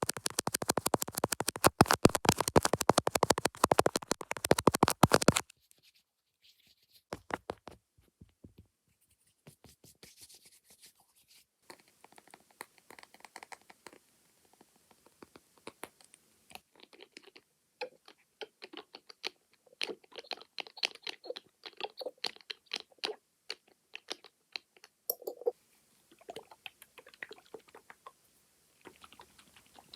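Makeup tools tapping and scratching on the screen or lens up close: about five seconds of dense, very fast tapping and scratching, then slower, scattered taps and light scratches.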